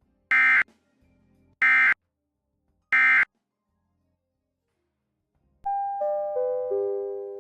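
Three short Emergency Alert System end-of-message (SAME "NNNN") data bursts from NOAA Weather Radio, each a fraction of a second long and about a second apart, marking the close of the required weekly test. About two seconds later comes a chime of four descending notes that ring on and fade.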